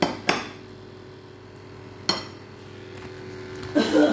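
Three sharp clinks, two close together at the start and one about two seconds in, then plastic packaging crinkling near the end as a hand goes into a bag of shredded mozzarella. A steady low hum runs underneath.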